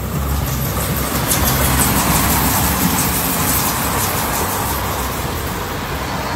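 Electric passenger train passing: a rushing rumble of wheels on rails that swells over the first two seconds and then slowly eases off.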